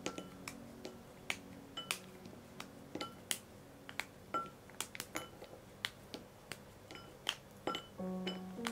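Dark chocolate snapped into pieces by hand and dropped into a ceramic bowl: an irregular string of sharp snaps and clinks, some with a brief ring from the bowl. Music comes in near the end.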